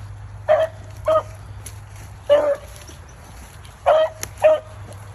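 Rabbit-hunting beagles baying on a rabbit's track: five short bays of steady pitch in about four seconds, the last two close together.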